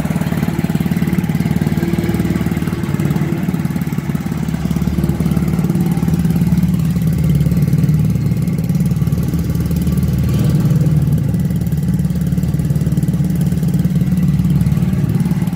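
An engine running steadily at a constant speed, a loud, even drone.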